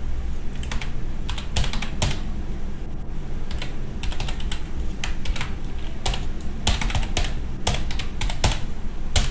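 Typing on a computer keyboard: quick, irregular keystrokes as an email address is entered, over a low steady hum.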